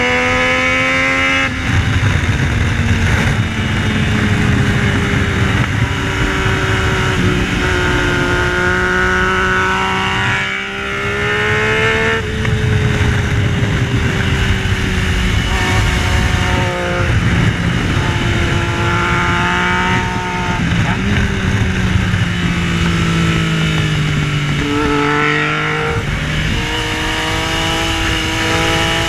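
Yamaha Tracer 900's three-cylinder engine under hard riding on track, its note climbing and falling with several abrupt pitch changes at gear shifts. A heavy rushing noise runs under it throughout.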